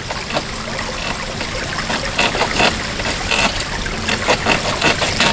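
Creek water trickling and splashing, with irregular sharper splashes.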